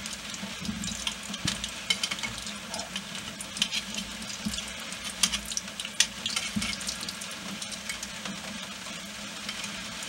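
Bread dough deep-frying in a saucepan of hot oil, sizzling steadily with frequent sharp crackles and pops. A metal spoon knocks and scrapes against the aluminium pot a few times as the dough is turned.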